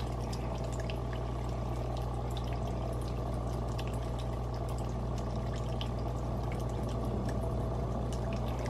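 Aquarium filter running: a steady flow of water with a constant low pump hum and faint small splashes.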